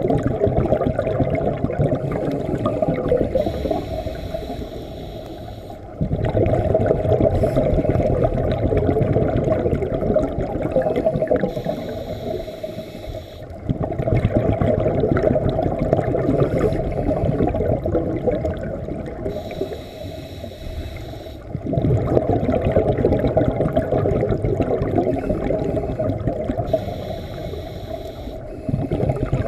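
Scuba diver breathing through a regulator underwater: a high hiss on each inhale, then a loud rush and burble of exhaled bubbles. About four breaths in all, one every seven to eight seconds.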